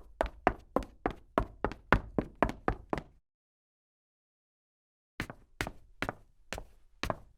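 A woman's footsteps as sharp clicks: quick steps about four a second that stop about three seconds in, then two seconds of dead silence, then a new run of slower steps about two a second.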